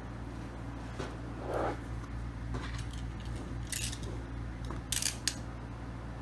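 Packaging being handled while unboxing a keyboard: a soft rustle, then a few short sharp crackles and clicks of plastic or cardboard, the loudest about five seconds in, over a steady low hum.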